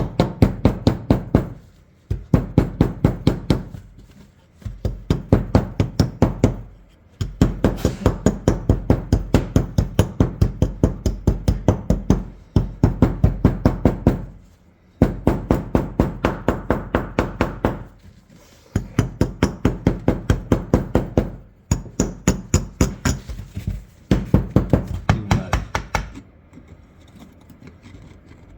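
Rapid tapping on a rusted shotgun, about five strikes a second in runs of two to three seconds with short pauses: a hardened shell of rust being chipped off the metal after electrolysis.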